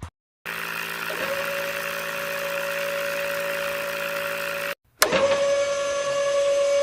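Small electric motor of a homemade mini drilling rig running with a steady whine. It spins up to speed about a second in, stops abruptly, then starts again already at speed after a short break.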